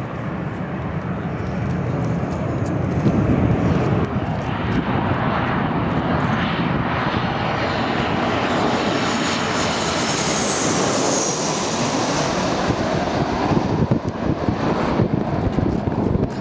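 Jet airliner passing low overhead on landing approach. Its engine noise builds over the first few seconds and stays loud, with a high-pitched engine whine that peaks about ten to twelve seconds in.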